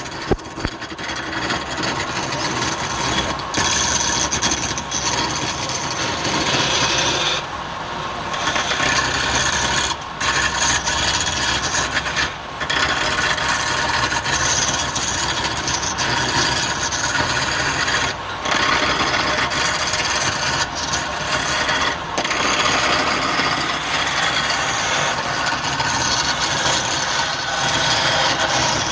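Wood spinning on a lathe with a turning tool cutting and scraping against it, a continuous rasping sound broken by a few short pauses.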